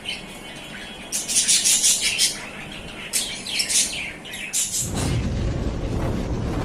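A pair of budgerigars chirping and chattering in two quick, high-pitched bursts. About five seconds in, a steady low rumble starts and continues.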